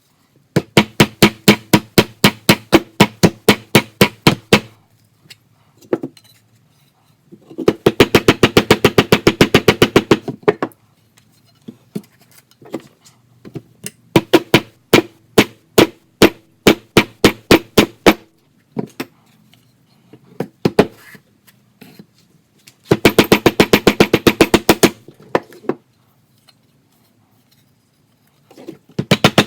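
Mallet hammering the bent frame of a loudspeaker down against the edge of a board, to straighten it. The blows come in runs of sharp strikes, some at about five a second and some much faster, with short pauses between the runs.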